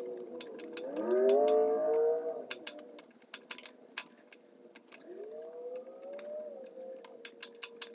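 Light, irregular clicking and scraping as old gasket material is scrubbed and picked off a Briggs & Stratton mower's carburetor mounting flange. Over it runs a wavering, pitched whine that swells and rises about a second in, then rises again around five seconds.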